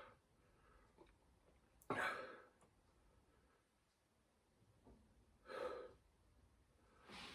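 A man's heavy breaths and sighs as he copes with a mouth burning from hot sauce: a sharp breath about two seconds in, another about five and a half seconds in, and a faint one at the very end, with near silence between.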